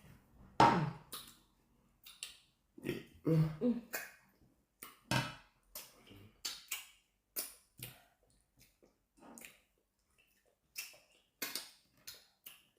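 Eating noises: irregular short clicks and mouth smacks, with a few brief throaty grunts.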